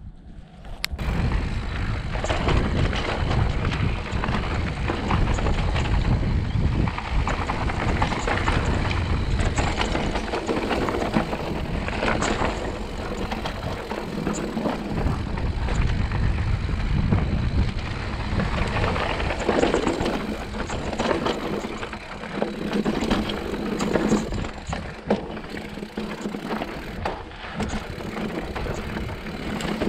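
Mountain bike ridden over rocky dirt trail, starting suddenly about a second in: tyres crunching over rock and the bike rattling with many sharp clicks, under heavy wind rumble on the microphone.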